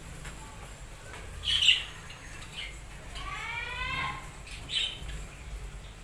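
Budgerigars calling: a sharp squawk about a second and a half in, the loudest sound, then a longer rising call and another short squawk near the end.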